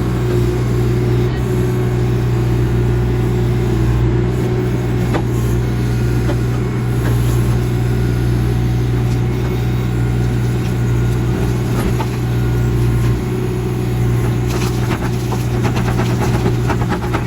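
Backhoe engine running steadily with a deep, even hum while the machine works. A run of clatter and knocks comes near the end.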